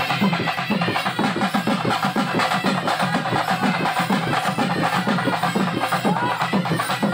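Drums beating a fast, steady rhythm of about five strikes a second.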